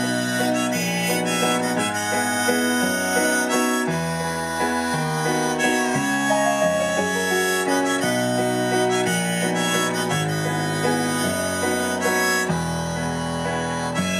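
Harmonica playing a melody over chords and a moving bass line from a Yamaha CP stage piano, an instrumental passage with no singing.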